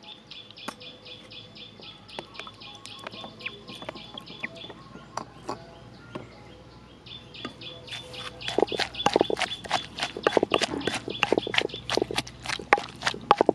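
A wooden pestle pounding shallots, chilies and toasted seeds in a mortar: a run of dull thuds, about four a second, starting about eight or nine seconds in. Before and under it, a rapid, evenly repeated high chirp in the background.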